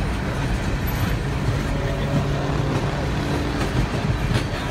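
Norfolk Southern open-top coal cars, which the railfan takes to be empty, rolling past on the rails: a steady rumble of steel wheels on track.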